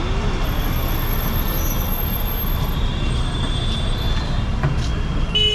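Steady street-traffic rumble, with a thin high-pitched squeal through roughly the first half and a fainter whine near the middle.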